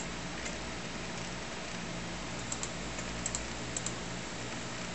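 Computer mouse buttons clicking in quick pairs, press and release, a few times while Workbench windows are closed, over the steady hum of the running computer.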